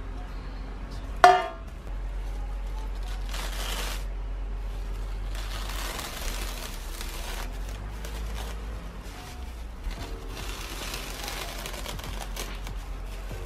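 A metal baking pan clanks once, with a brief ring, about a second in. Then cling wrap crinkles and crackles in several stretches as it is peeled out of a rope basket.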